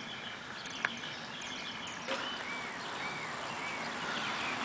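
Outdoor ambience with a bird calling a series of short arched chirps, about two a second, starting about two seconds in; a single faint click about a second in.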